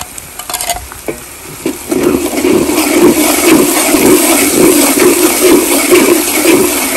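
Blended dried chilli paste sizzling in hot oil in a large steel wok while a metal spatula stirs and scrapes it. The sound is quiet at first and gets loud about two seconds in, with the stirring strokes pulsing about twice a second.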